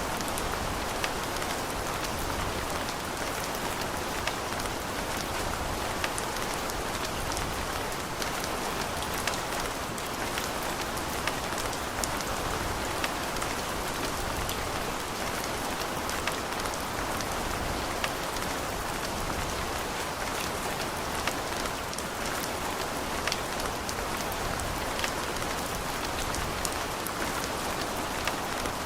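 Steady rain falling and pattering on surfaces, with scattered individual drops ticking sharply throughout.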